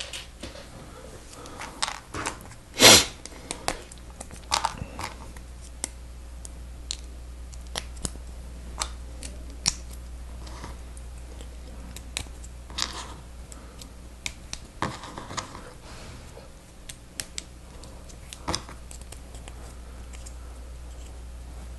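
Scattered clicks and clatters of plastic Lego Technic pieces being handled and pressed together, with a louder clatter about three seconds in. A steady low hum runs underneath.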